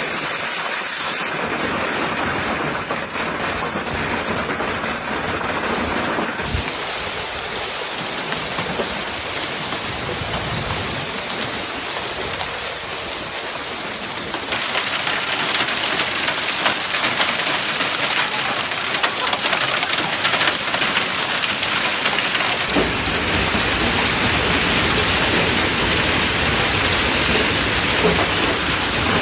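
Hail and heavy rain pelting down in a severe thunderstorm, a dense steady clatter that changes abruptly a few times and grows louder and fuller in the later part.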